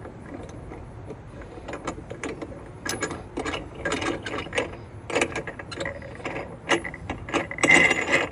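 The locking knob of a RotoPax pack mount being twisted down through a 4-gallon RotoPax gas can to secure it, giving a run of irregular clicks and rattles that is densest and loudest near the end.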